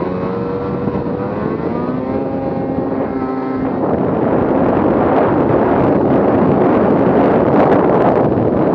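Arctic Cat M8000 snowmobile's 800 two-stroke twin running on the move, its pitch rising and falling with the throttle. About four seconds in, a louder rush of noise takes over and mostly covers the engine.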